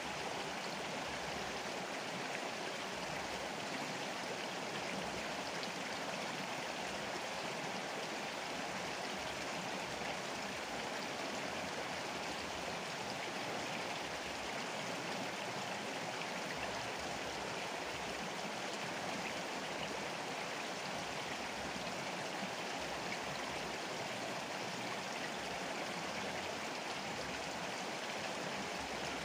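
Steady rush of a flowing river's water.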